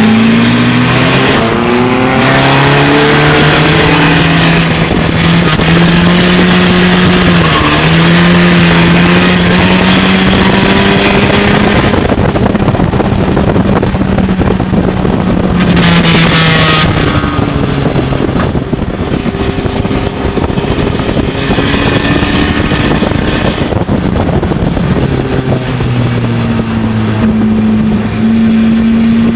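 Stinger-class dirt-track race car's engine running hard, heard from inside the car, over a steady rush of wind and tyre noise. The engine pitch climbs early on, holds steady for a long stretch, drops lower a little past halfway and jumps back up near the end.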